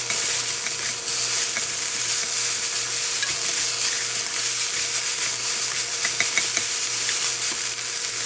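Shredded bellflower root (doraji) sizzling in a mix of sesame oil and cooking oil in a nonstick wok, a steady hiss, while wooden chopsticks stir it with small scattered ticks and scrapes.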